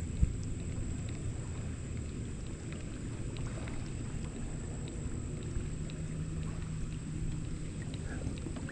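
Low, steady rumble of wind and water around a kayak, with one sharp knock about a quarter second in.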